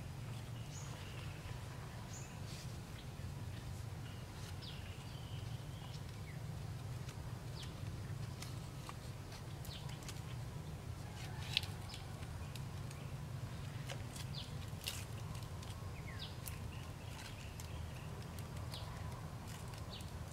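Bamboo rails being handled and lashed to wooden posts: scattered light clicks and rustles, with one sharper knock a little past halfway. Occasional short bird chirps and a steady low hum run underneath.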